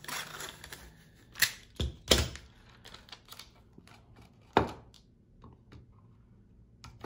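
Clear tape being handled and pressed down over a hard plastic cup holder part: a short rasp of tape at the start, then light clicks and several sharp knocks of the part and tape box on a wooden table, the loudest a little under a second into the second half.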